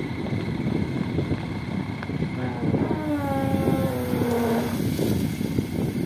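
Backhoe loader's diesel engine working steadily as it raises the full front bucket of gravel over a dump truck. From about two and a half seconds in, a whine rises above the engine, sinks slightly in pitch and fades out before five seconds.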